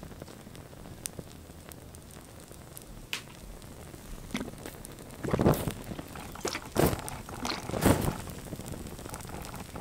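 Small fire on a die-cast toy car crackling with scattered pops, then from about halfway in a run of loud whooshes as flames flare up over the cars, the biggest three about a second apart.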